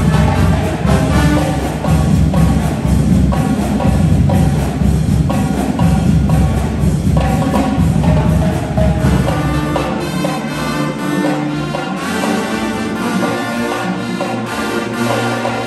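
High school marching band playing live, drumline and brass together. About ten seconds in, the heavy bass drums drop out and the horns carry on with held notes.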